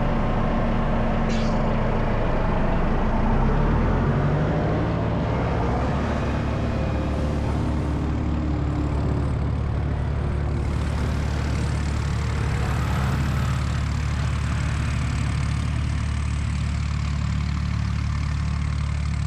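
Steady motor hum with a low pitch that rises during the first few seconds, then holds level.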